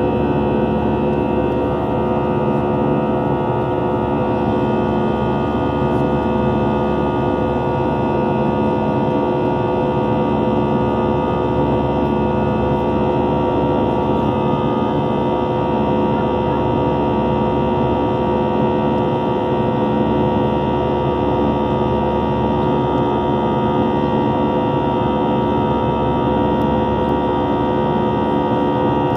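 Airbus A320's engines heard from inside the passenger cabin during the climb after takeoff: a loud, steady drone of several held tones over a rushing noise.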